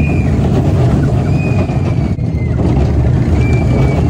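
Children's roller coaster in motion, heard on a rider's phone: a loud, steady rumble of wind on the microphone and the train running along the track. A faint high squeal that falls slightly in pitch comes three times, near the start, in the middle and near the end.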